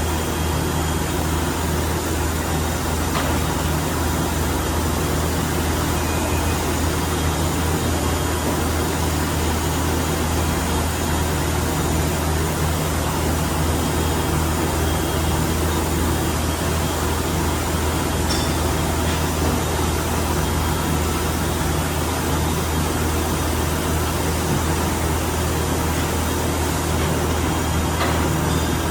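OKK HM-500S horizontal machining center running under power, a steady machine hum with a strong low drone. A few faint clicks come through about three seconds in, midway, and near the end.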